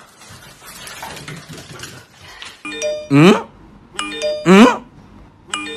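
A soft rustling noise, then from about halfway in a doorbell-style ding-dong chime rings about every second and a half, each time followed by a loud, sliding, voice-like cry.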